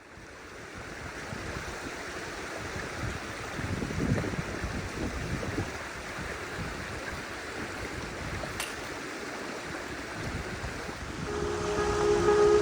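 Creek water running over rocks, a steady rush that fades in at the start. Music comes in near the end.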